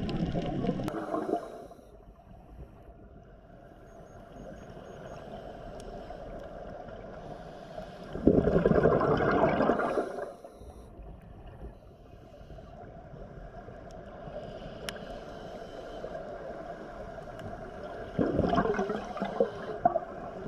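Scuba diver's exhaled bubbles gurgling out of the regulator in three loud bursts about nine seconds apart, with a quieter steady hiss in between.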